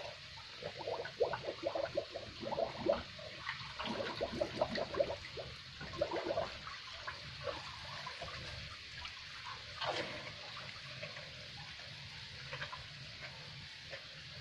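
Cow drinking a feed-and-water mix from a basin: irregular slurps and splashes of liquid, busiest in the first half, then quieter.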